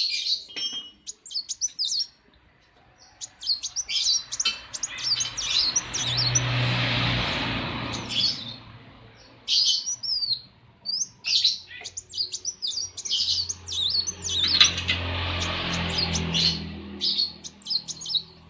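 A kolibri wulung (sunbird) singing a fast, chattering song of high chirps and twittering notes, almost without pause. Twice a steady hiss with a low hum rises under the song for a few seconds.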